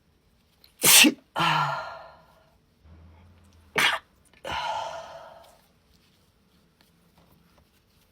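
A woman sneezing twice in a fit, about three seconds apart. Each sneeze is a sharp, loud burst with a drawn-out trailing sound after it.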